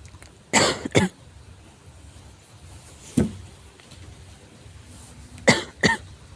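Bouts of a severe cough: two quick coughs near the start, a single cough about three seconds in, and two more quick coughs near the end.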